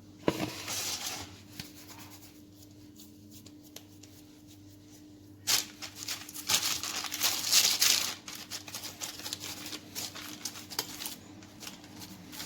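Hands rustling and rubbing as a log of soft kroki dough is shaped and pressed on a baking tray. There is a brief rustle just after the start, a louder stretch of rustling from about the middle, then scattered light crackles. A faint steady hum runs underneath.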